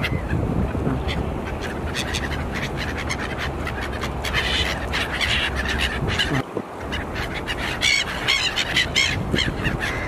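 A flock of gulls calling, many short, overlapping squawks coming thick and fast, over a steady low background noise.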